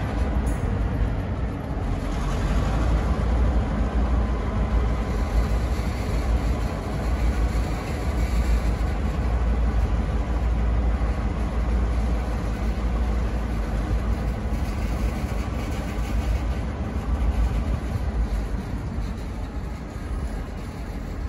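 Slow freight train passing: the wheels of a tank car and boxcars rolling over the rails, with the low rumble of the lead pair of EMD GP38-2 diesel locomotives running as they pull away. The sound is a steady, heavy rumble.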